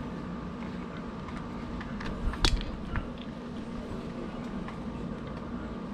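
Hard plastic parts of a backpack sprayer clicking as a small cover is fitted onto the pump-handle fitting: one sharp click about two and a half seconds in, with a few fainter clicks around it. A steady low hum runs underneath.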